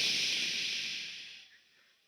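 A hissing noise that fades away over about a second and a half, then silence.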